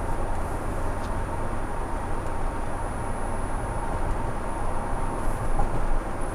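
Steady road noise of a car cruising at about 50 mph, heard from inside the cabin through a windshield-mounted dash cam's microphone.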